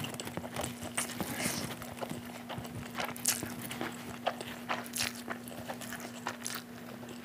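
Close-miked mouth sounds of eating Maggi instant noodles: wet chewing and slurping of noodle strands, with many short clicks and smacks. A steady low hum runs underneath.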